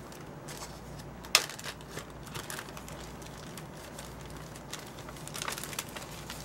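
Handling noise from small parts and packaging: one sharp click about a second and a half in, then scattered lighter clicks and crinkling near the end, over a low steady hum.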